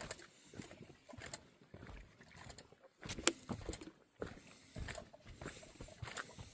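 Footsteps on a forest dirt trail: irregular soft crunching steps, with one sharper knock about three seconds in.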